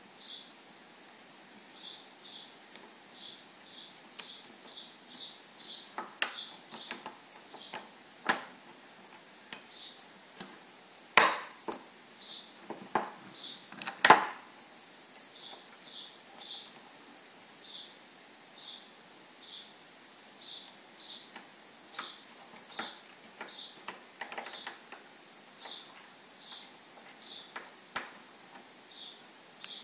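Metal clicks and clacks as the leg spring is worked loose from a GU sliding-window running carriage, with two loudest sharp snaps about 11 and 14 seconds in. Behind them, short high chirps repeat about once or twice a second.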